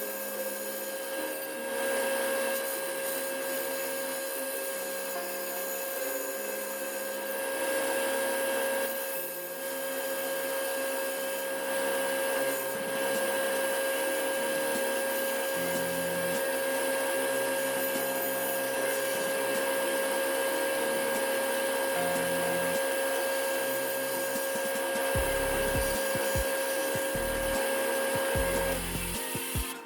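Steady whine of a small electric motor, holding one pitch with a hiss, which stops shortly before the end.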